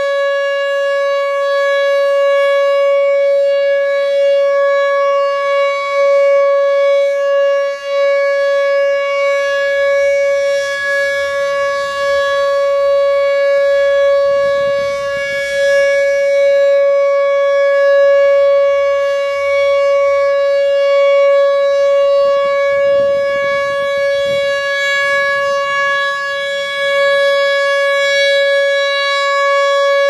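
Rotating electronic siren loudspeaker of a nuclear plant's Public Alert and Notification System sounding its continuous alert tone: one steady, unchanging pitch, swelling and dipping slightly as the horn array turns. The continuous tone is the signal for people outdoors to tune in to an Emergency Alert System radio station.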